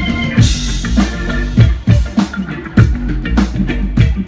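Live band playing loudly: a drum kit driving the beat with kick and snare hits over a deep bass line, with a cymbal crash about half a second in.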